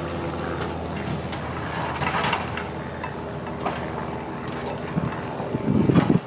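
Grapple truck's engine and hydraulic loader running steadily as the empty grapple swings, a steady hum with scattered light clicks. A louder low rumble comes in near the end.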